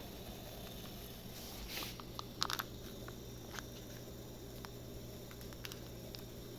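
Ingredients being handled: a brief rustle, then a quick cluster of light clicks and crunches about two and a half seconds in, followed by a few scattered ticks, over a steady low hum.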